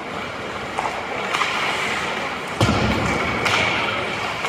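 Ice hockey play in an arena: a steady hiss of skates on ice with a few sharp stick-and-puck knocks, and one heavy thud against the boards about halfway through.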